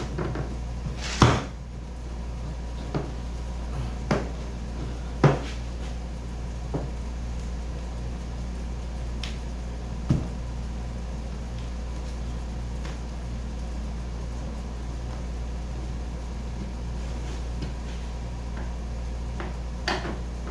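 A few scattered light knocks and clicks from hardware being handled, loudest about a second in and about five seconds in, over a steady low hum.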